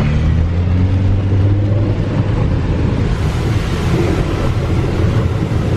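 Car engine pulling under load, its pitch rising over the first two seconds as the car drives through deep floodwater. From about three seconds in, a rushing hiss of water thrown up by the tyres and underbody joins it.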